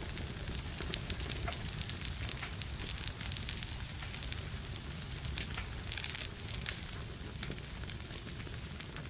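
Wood fire burning in a fireplace, crackling and popping with many quick, irregular snaps over a steady low rumble of flame.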